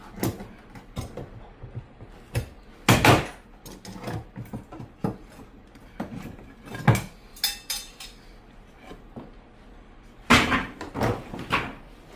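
Irregular knocks and clatters of hard objects being handled: a louder knock about three seconds in, another around seven seconds, and a quick run of knocks near the end.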